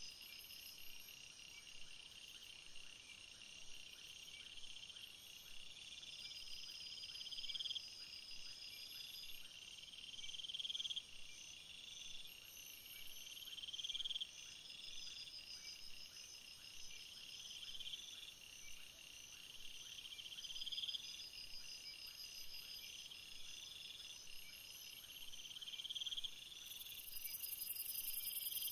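Faint insect chirping: a rising buzz that repeats about every two seconds over a steady, high pulsing trill. A higher hiss joins near the end.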